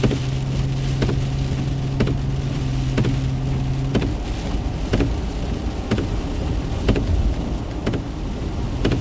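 Heavy rain drumming on a moving car, heard from inside the cabin, with a short knock about once a second, typical of windshield wipers on fast speed. A steady low hum stops about four seconds in.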